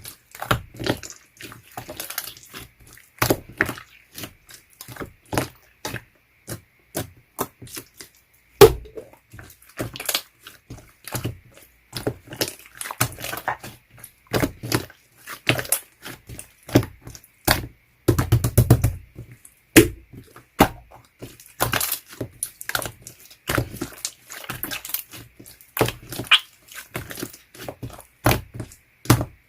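Clear slime being squeezed, poked and stretched by hand, making irregular sticky clicks and pops, some sharp and loud.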